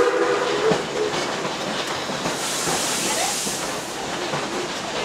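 A riding train car clattering and rattling over the track behind 1916 2-6-2 Prairie-type steam locomotive No. 4. The locomotive's steam whistle dies away in the first half-second, and a high hiss comes up about two and a half seconds in and lasts about a second.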